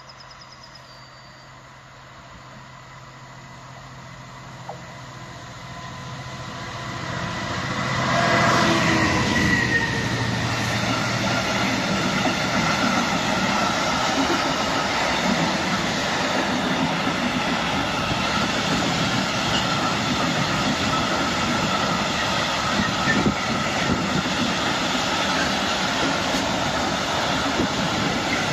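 Two Class 66 diesel locomotives, with two-stroke EMD V12 engines, hauling a freight train past. Their engine hum grows as they approach and is loudest as they pass about eight seconds in, followed by the steady rumble of freight wagons rolling over the rails.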